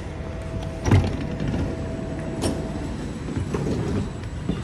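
Electric sliding door of a double-deck regional passenger train opening after its push button is pressed. A steady tone runs for about three seconds, with a thump about a second in and a sharp click a little later.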